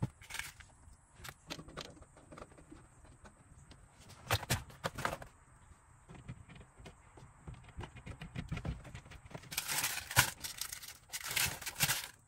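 Scattered clicks and knocks from hands and tools at work, with a cluster of louder knocks about four seconds in and two longer scraping, rustling stretches near the end.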